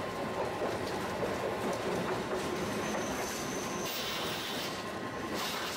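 Tosaden 600-series streetcar running along street track, heard from inside the car: a steady rumble of wheels on rail with the car's running noise. A thin high tone comes in briefly about halfway through, followed by a short high hiss.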